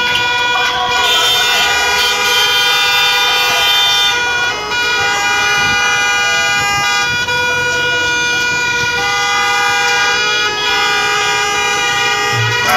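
Many car horns honking together in long, overlapping blasts, with the mix of pitches shifting every second or two.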